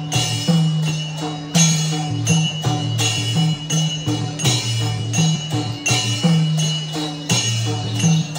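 Traditional Newari dance music: drums with clashing cymbals in a steady, quick rhythm of sharp strokes.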